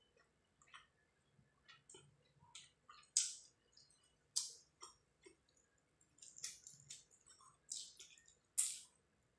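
Close-up eating sounds of a person chewing rice and fish curry eaten by hand: irregular wet clicks and lip smacks, with a few sharper smacks about three seconds in, midway and near the end.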